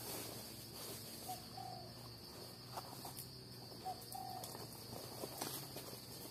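A steady high-pitched insect drone from crickets, with a bird calling twice, each call a short note followed by a longer one. There is light rustling of dry leaf litter.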